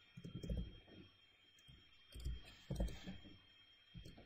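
Faint computer keyboard keystrokes and clicks in a few short clusters.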